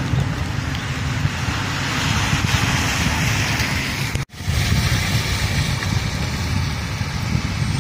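Steady rain on a flooded street, an even hiss, with wind rumbling on the microphone. The sound drops out for an instant about four seconds in.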